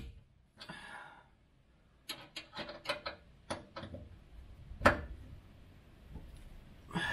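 A run of sharp clicks and taps, about eight in two seconds, then a single louder click near five seconds in. A fuel-line fitting is being tightened at the fuel tank of a 1967 Ford Mustang.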